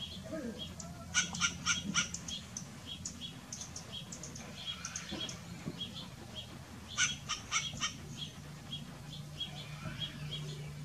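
Birds calling: a short high chip repeating about twice a second, and twice a quick run of four or five harsh squawks, about a second in and again about seven seconds in.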